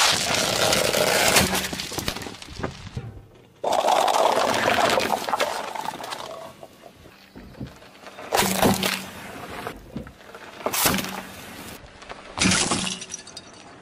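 Car tyre rolling over and crushing objects: a long crunching and cracking of breaking glass, then, after a cut, a second long crunch. Three short sharp cracks of things snapping under the tyre follow.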